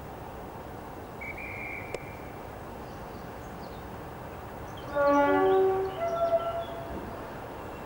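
A whistle gives one short high blast, then a diesel locomotive's two-tone horn sounds about five seconds in, lasting around two seconds. A horn answering the flag and whistle like this is the driver acknowledging the right-away to depart.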